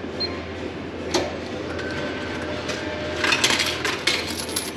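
Retro glass-front bottle vending machine dispensing a bottle of Coca-Cola after the selection button is pressed: a single click about a second in, then a burst of mechanical rattling and clinking near the end as the mechanism moves and delivers the glass bottle.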